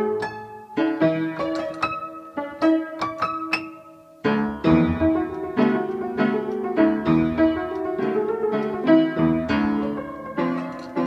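Upright piano played solo in a lively piece of quick, separate notes. The playing thins out and almost stops for a moment about four seconds in, then picks up again with fuller chords.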